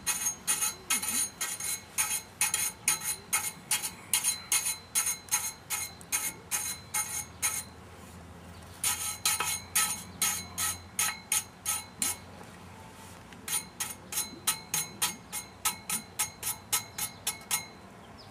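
Hand wire brush scrubbing loose rust and scale off the top of a rusty galvanized steel lamp-post pipe: quick back-and-forth scraping strokes, about four a second, with two short pauses about 8 and 12 seconds in.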